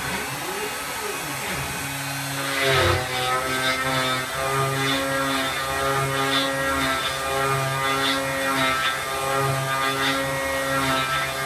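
CNC router's stepper motors whining as the machine moves, the pitch jumping between a few steady notes as the axes change direction and speed. A louder burst of noise comes just under three seconds in.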